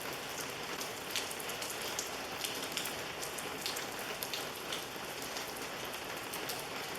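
Heavy rain falling steadily, with scattered single drops ticking now and then.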